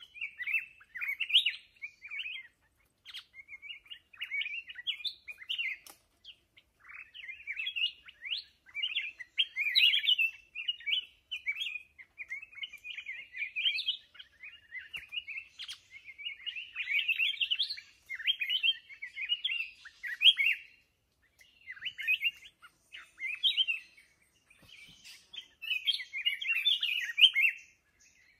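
Black-crested bulbul singing: rapid, chattering phrases of quick up-and-down notes, repeated in bursts of a second or two with short pauses between them.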